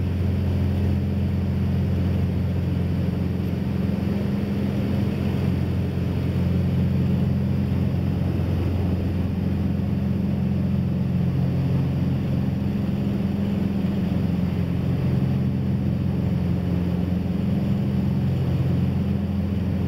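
Cessna 421's twin turbocharged piston engines and propellers droning steadily in flight, heard inside the cabin: an even, low hum with a few steady tones.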